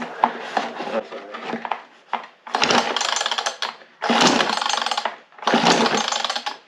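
Two-stroke Stanley chainsaw being pull-started: three pulls on the recoil starter cord in a row, each about a second of rapid rattling cranking, without the engine catching. Light clicks of the saw being handled come before the first pull.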